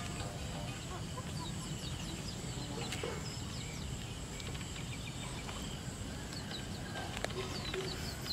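Chicks peeping in short, high, falling chirps scattered throughout, over a steady high insect drone.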